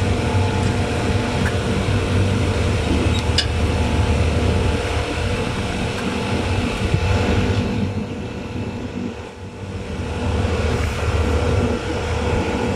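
Chiller plant machinery running: a steady drone with a low hum and a constant mid-pitched tone, dipping briefly about eight seconds in.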